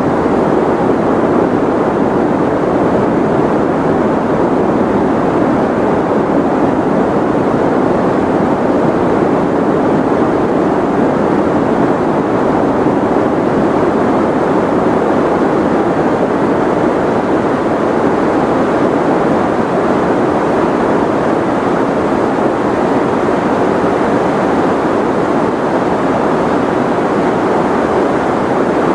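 Steady, unchanging white noise for sleep: a loud, even rushing hiss, fullest in the low-middle range and dull in the highs, with no changes.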